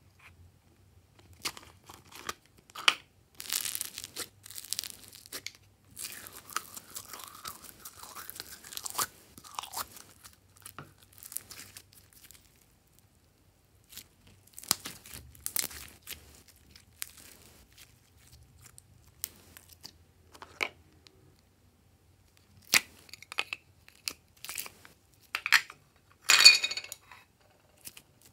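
Hands stretching, squeezing and kneading glossy pink glitter slime. It gives irregular clicks and crackles with short quiet gaps between handfuls, and a louder burst of crackling near the end.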